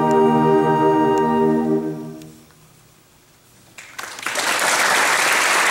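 Concert band of brass and woodwinds holding a final sustained chord that is cut off about two and a half seconds in, ringing briefly in the hall. After a moment of quiet, the audience breaks into applause.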